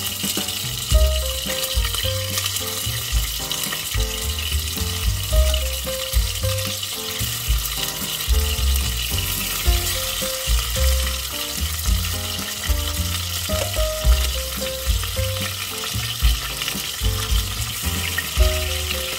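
Chicken pieces sizzling steadily in hot oil in a stainless steel pot, stirred and turned with a perforated spatula partway through. Background music with a bass beat plays underneath.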